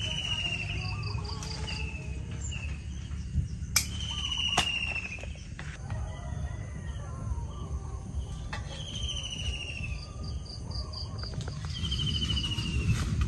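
Birds calling: a short descending whistled note repeated again and again, with a fast pulsed trill twice, over a steady low rumble. Two sharp clicks about four seconds in.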